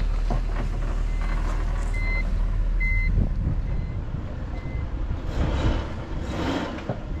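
A 1991 Nissan Gloria Y32's warning beeper gives short, high beeps at an even pace of about one a second over the low, steady rumble of its engine running. About five seconds in, a louder rush of noise lasts roughly a second and a half.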